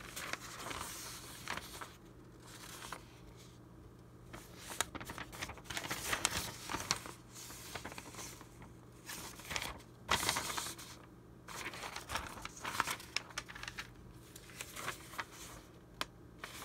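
Sheets of old vintage paper handled by hand, picked up, turned over and shuffled: rustling and crinkling in irregular bursts, with sharp crackles as the stiff sheets bend.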